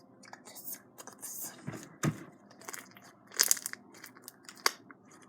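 Hands squishing and stretching slime: irregular sticky pops and crackles, with a few sharper pops about two seconds in, around three and a half seconds, and near the end.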